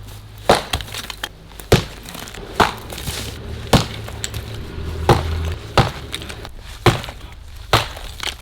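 A 3.6 kg sledgehammer striking a brick letterbox again and again: about eight sharp blows, roughly one a second, with brick cracking and bits clattering between them.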